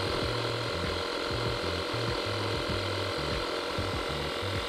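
Compact 12-volt portable tire inflator's small piston compressor running steadily, pumping air into a flat car tire toward its set 35 PSI.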